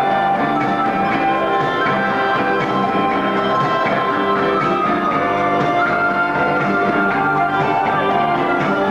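Live band playing dance music led by accordion and electronic keyboard, with held, sustained melody notes.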